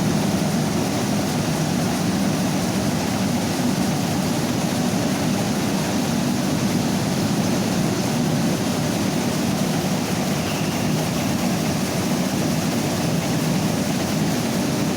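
Mini rice milling machine running steadily, a constant, unbroken machine noise strongest low down.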